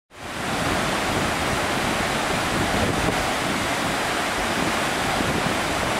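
A steady rushing noise with no pitch or rhythm, starting abruptly just after the beginning and holding level throughout.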